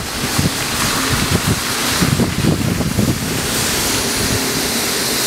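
Wind rushing and buffeting against the microphone, with irregular low gusts for the first few seconds, then steadier.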